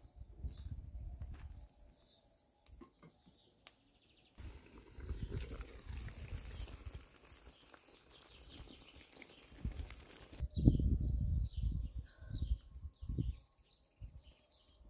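A steady sizzling hiss from quail simmering in a pan over a wood fire, then birds chirping. About two-thirds of the way in, gusts of wind buffet the microphone with loud low thumps.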